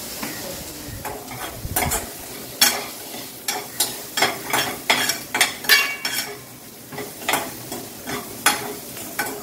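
Sliced onion sautéing in oil in a pan, stirred with a spoon that scrapes and knocks against the pan in quick strokes, roughly two a second, with a short pause past the middle.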